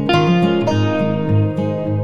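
Background music led by plucked guitar notes.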